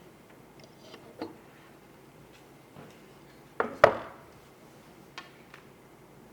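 Computer parts being handled and fitted during a PC build: a few scattered clicks and knocks, the loudest a quick double click about three and a half seconds in.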